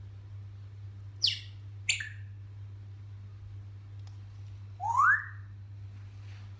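African grey parrot giving two short, sharp calls a little over a second in, then one loud whistle rising in pitch about five seconds in. A steady low hum runs underneath.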